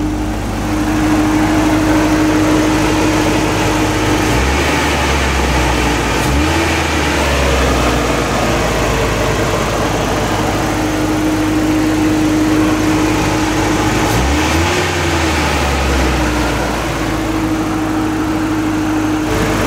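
1993 Toyota pickup's 22RE four-cylinder fuel-injected engine idling steadily. Its note shifts briefly twice, about four and fourteen seconds in.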